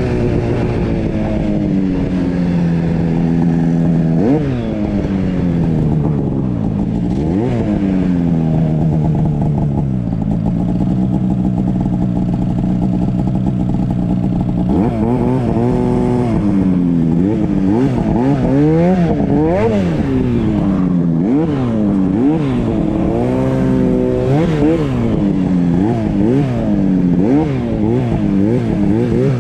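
Two-stroke mountain snowmobile engine pulling through deep powder, revving up and down under the throttle. It holds fairly steady for a stretch in the middle, then rises and falls in quick repeated revs through the second half.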